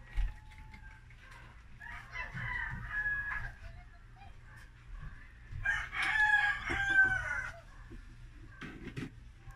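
Rooster crowing twice: a fainter crow about two seconds in, then a louder one around six seconds in, each lasting a second or two.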